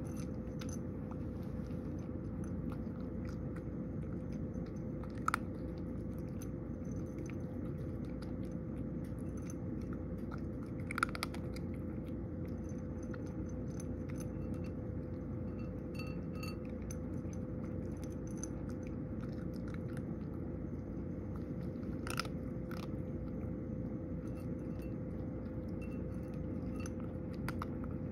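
A cat crunching and chewing dry kibble, with a few sharper clicks standing out, over a steady low hum.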